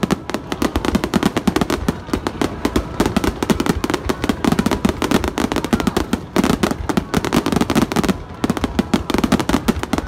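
Aerial fireworks fired in a rapid barrage: many shells bursting in quick succession, a dense run of bangs and crackle with brief lulls about two, six and eight seconds in.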